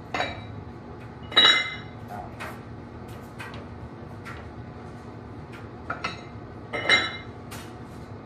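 Metal weight plates and bars clinking together as the weights are handled, with a few sharp ringing clinks. The loudest comes about a second and a half in and another near seven seconds.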